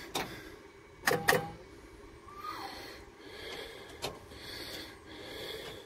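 A few sharp clicks and knocks, the loudest two close together about a second in, over soft breathing close to the microphone; the engine is not running.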